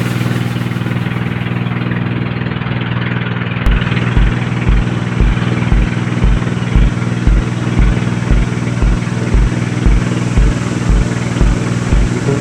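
A boat engine running steadily with a droning hum. From about four seconds in, a low thump repeats about three times a second.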